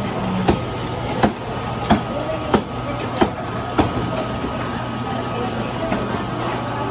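Electric meat grinder running with a steady motor hum. About six sharp knocks come at an even pace, roughly two-thirds of a second apart, during the first four seconds.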